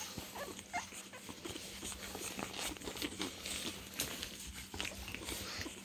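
Six-week-old pug puppies scrabbling and moving about on fabric bedding: irregular soft rustles, patters and small clicks.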